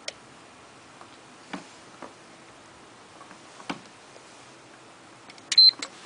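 A single sharp click from the digital timer as its display reaches the full minute, the relay switching, then a few faint handling knocks. Near the end comes a short high beep with clicks around it, the loudest sound.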